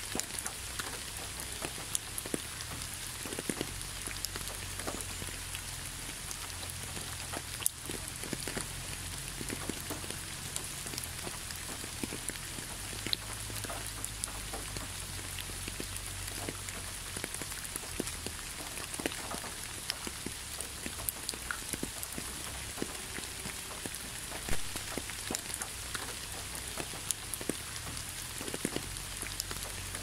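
Rain falling on a wet, leaf-strewn asphalt road: a steady hiss with many separate drops ticking close by, a few of them louder than the rest.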